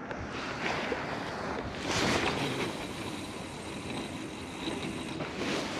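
Ocean surf washing on the beach with wind buffeting the microphone; a wave surges about two seconds in and another near the end.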